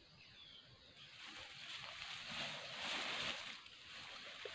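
Leaves, grass and bamboo stems rustling and swishing as a person pushes through a dense thicket, growing louder in the middle and then easing off.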